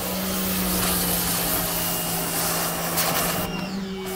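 Electric pressure washer running steadily with its water jet hissing, a motor hum that switches on at the start as the trigger is pulled.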